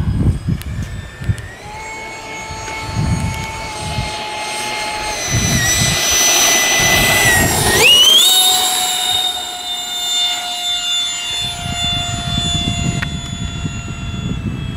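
E-flite Habu 32's electric ducted fan, on an 8S power setup, whining through a takeoff run and climb-out. It grows louder as the jet rolls toward and past close by, sweeps sharply up in pitch about eight seconds in, then holds a steady high whine as it climbs away.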